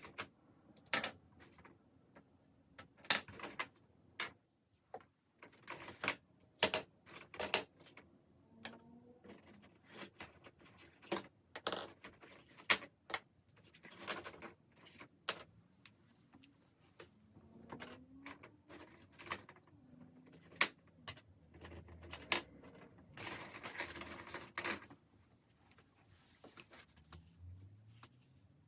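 Irregular clicks, taps and short rustles of small objects being handled at close range, some in quick clusters, with a few faint sliding squeaks, in sped-up footage.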